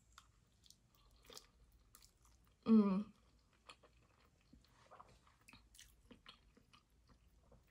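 A person chewing a mouthful of noodles close to the microphone: soft wet mouth clicks and smacks. One short hummed voice sound about three seconds in is the loudest moment.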